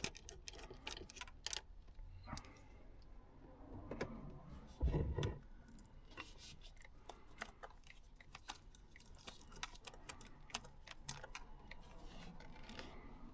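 Scattered light clicks and small metallic rattles of tools and parts being handled while a truck's steering wheel is taken off, with one dull knock about five seconds in.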